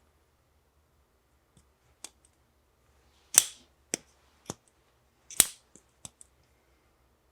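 Civivi Elementum Utility knife being handled: a string of sharp mechanical clicks and snaps, about nine in all, the two loudest about three and a half and five and a half seconds in.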